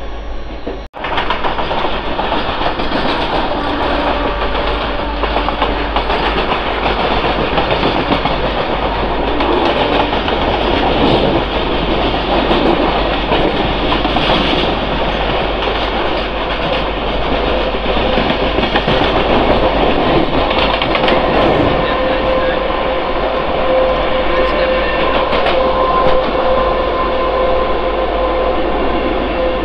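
Mumbai suburban local electric train running at speed, heard from its open doorway, with a freight train of covered wagons passing close on the next track: a loud, steady rush of wheels on rails. A steady hum joins in over the second half. The sound drops out abruptly for a moment about a second in.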